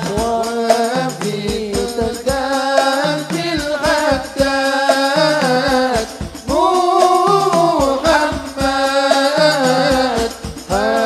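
Men chanting an Arabic tawasul litany in unison: one lead voice on a microphone with others joining, in long, drawn-out sung phrases over a steady percussion beat.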